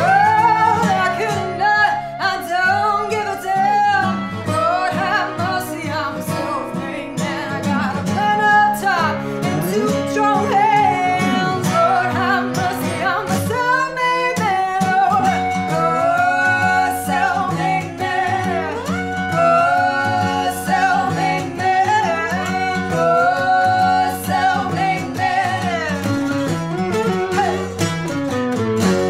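A woman singing over a strummed acoustic guitar and a lap steel guitar played with a slide, whose notes glide up and down between pitches.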